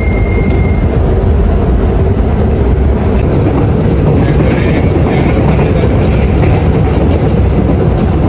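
Interior of an electric commuter train car departing: a steady high door-warning tone stops about a second in, then the car's steady running rumble and rail noise.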